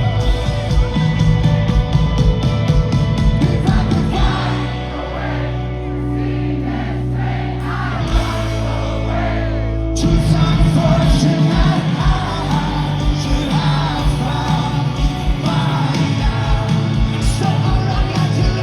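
Rock band playing live with a singer. About four seconds in, the drums drop out, leaving held low notes under the voice. About ten seconds in, the full band crashes back in.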